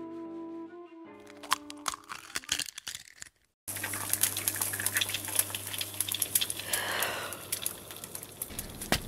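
Gentle music ends about a second in, followed by sharp cracks of an eggshell breaking. After a brief gap, an egg fries in a pan: steady sizzling full of crackles and small pops.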